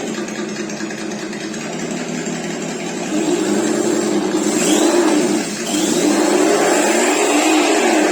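Simulated truck engine from an RC sound module, played through the module's small speaker: it idles, then revs up about three seconds in, drops briefly and revs again, with short rising whistles over the top twice.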